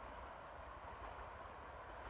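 A KiHa 32 diesel railcar running faintly in the distance, a steady low rumble over a constant insect chorus.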